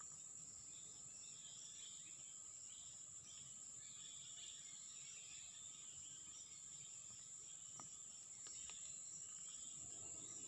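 Faint outdoor ambience: insects droning steadily at a high pitch, with scattered faint chirps and a couple of small clicks.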